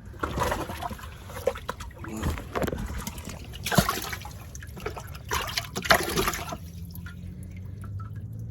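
Water splashing and trickling in irregular bursts, with two sharper splashes about four and six seconds in. After about six and a half seconds it quietens and a low steady hum starts.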